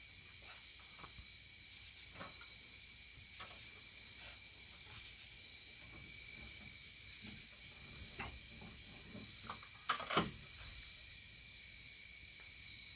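Steady, high-pitched trilling of night insects such as crickets, with faint scattered clicks and scratches and two sharp knocks about ten seconds in.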